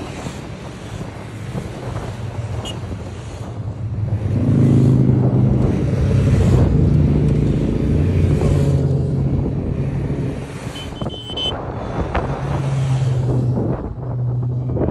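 Road motorcycles passing one after another at speed. Their engines swell as each bike goes by and fade away, loudest a few seconds in and again near the end, with wind buffeting the microphone.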